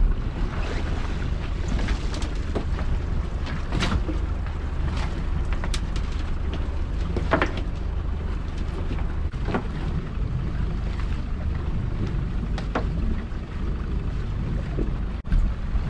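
Small outboard-powered fishing boat under way on choppy water: a steady low rumble of the motor and wind on the microphone, with a few sharp knocks and splashes against the hull.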